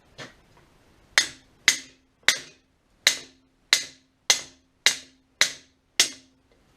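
Hammer blows on metal, about nine sharp strikes at a steady pace of roughly one every half-second to second, each leaving a short metallic ring. The hammering is working the seized throw-out bearing off a Cub Cadet 1200 driveshaft.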